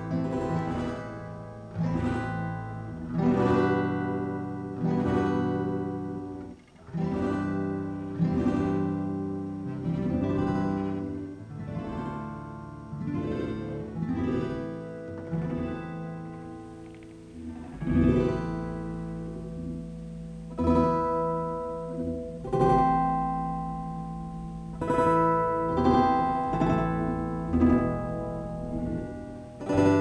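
Plucked-string music run through a granular pitch-shifting effect with delay. Notes start sharply and die away, one every second or two, layered with pitch-shifted copies.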